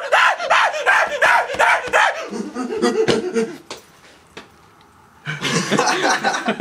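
Young men's voices yelping and laughing, high-pitched and frantic for the first two seconds, then lower. There is a lull of about a second and a half, then loud laughing starts again near the end.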